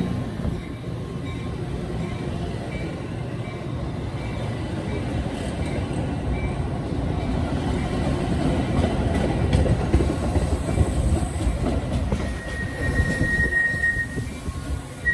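Metra bilevel gallery coaches rolling past close by: a steady rumble of wheels on rail, with a thin, high wheel squeal coming in near the end.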